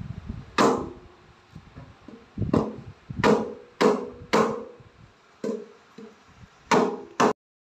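Stainless steel kitchen sink bowl knocked about eight times at uneven intervals, each knock ringing briefly and fading like a struck metal pan.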